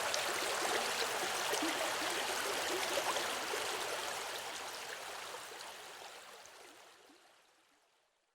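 A river or stream of water running, a steady rushing and bubbling. From about three seconds in it fades out to silence.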